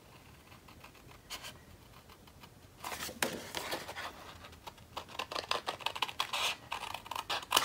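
Cardstock being handled and worked at a craft table: after a single click, a dense run of scratchy clicks and rustles starts about three seconds in and carries on.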